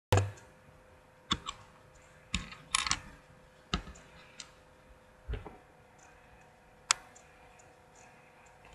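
Plastic Lego bricks being handled, giving irregular sharp clicks and knocks, one or two a second with a quick cluster around three seconds in, over a faint steady hum.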